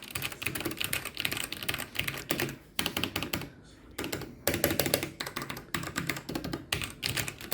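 Keys of a Havit KB498L 60% mechanical keyboard with brown switches being pressed in rapid runs of clicky keystrokes, with a brief lull about halfway.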